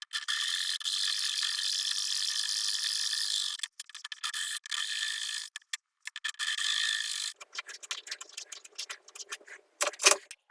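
A small power tool running in several bursts that stop abruptly, with a steady whine. Later it turns into a choppy run of rapid short ticks, with a sharp knock near the end.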